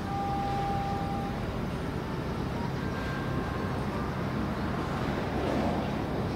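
Steady low mechanical rumble mixed with noise, the hum of a vehicle or engine, with a few faint short steady tones above it, the longest near the start.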